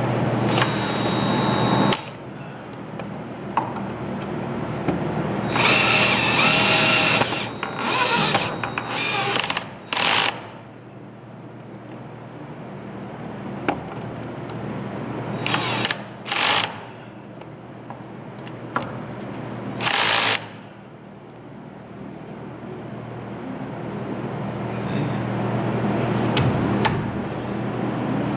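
Power tool run in several short bursts of about a second or two each, the first and longest with a whine, over a steady low hum.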